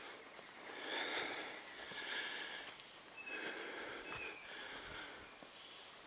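A person breathing close to the microphone: four slow, soft breaths a little over a second apart, with faint ticks and a steady thin high tone behind them.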